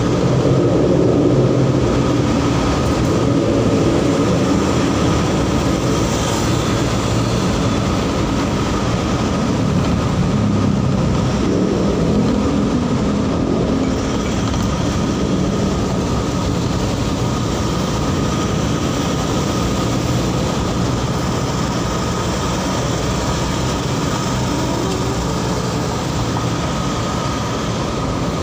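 Steady rumble of a vehicle driving, with road and engine noise, a little louder in the first few seconds in the underpass and then even.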